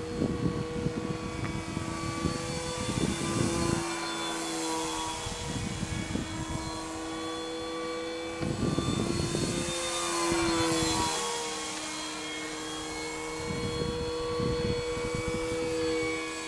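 Electric motor and propeller of a Multiplex Mentor RC model plane in flight, a steady humming drone whose pitch shifts slightly as it passes about ten seconds in. Intermittent low rumbles come and go beneath it.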